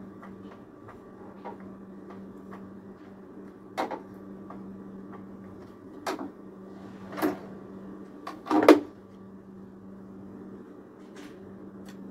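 Handling noises at a home sewing machine: fabric being shifted and a few short sharp knocks and rustles, the loudest a double knock about three quarters of the way in, over a steady low hum.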